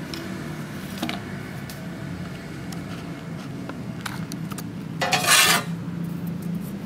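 Metal being handled: a few light clicks, then a brief loud metallic rattle about five seconds in, over a steady low hum.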